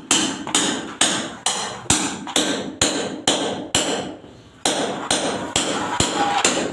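Hand hammer striking hard, repeatedly, about two blows a second, each blow sharp and ringing, with a short pause about four seconds in.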